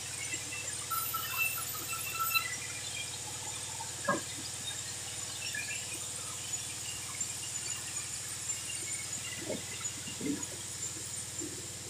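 Sawmill band saw running steadily without cutting, a constant mechanical drone with short high squeaks in the first couple of seconds. Sharp wooden knocks come about four seconds in and again a few times near the end as timber is handled at the saw table.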